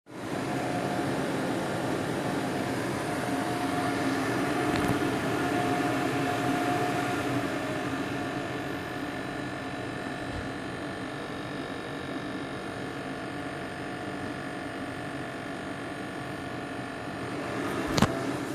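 Steady fan-like hum of a running machine, with a few steady tones in it, and a single sharp click near the end.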